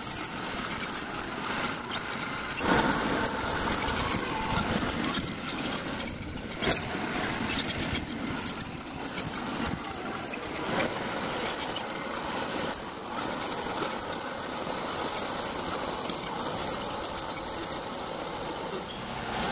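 Homemade radio-controlled hydraulic bulldozer crawling over dirt: its metal tracks clatter and squeak over the sprockets and rollers as it runs.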